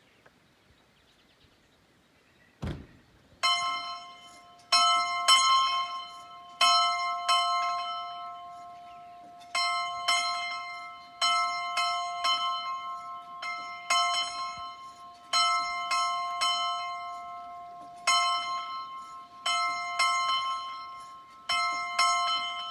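A single church bell tolling, struck again and again at uneven gaps of about one to two seconds, each stroke ringing on and fading. A low thump comes just before the first stroke, about three seconds in.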